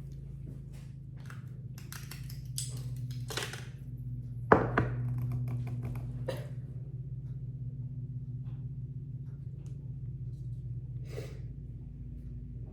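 Kitchen utensils and containers being handled while ingredients are measured: scattered taps, clicks and brief rustles, with one sharp knock about four and a half seconds in, over a steady low hum.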